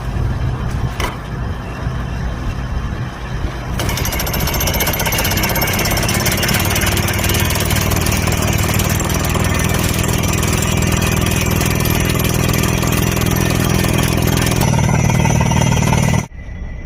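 Hyundai excavator's diesel engine running, then from about four seconds in its mounted percussive rock drill hammering steadily while drilling a blast hole in rock. The sound cuts off abruptly near the end.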